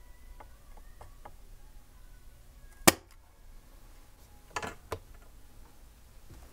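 Clicks and taps of hand tools on a circuit board while a capacitor is being desoldered and pried off. A few faint ticks come first, then one loud sharp click about three seconds in, then a short scratchy clatter and another click a little before five seconds.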